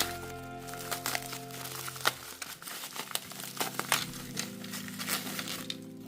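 Packaging crinkling and crackling as a toy box is unpacked by hand, in irregular sharp crackles, over background music.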